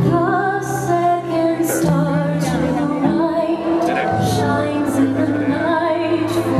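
Show music with a woman singing over sustained low notes that change twice.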